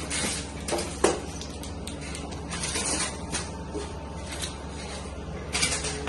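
Packing tape being peeled off a refrigerator door in short rasps, with a sharp knock about a second in.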